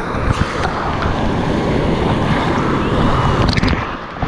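River whitewater rushing and splashing over the camera, a steady loud rush with a few sharp knocks about three and a half seconds in.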